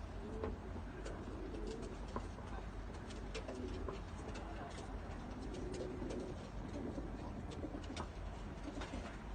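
Domestic pigeons cooing, several overlapping low coos repeating, with scattered sharp clicks.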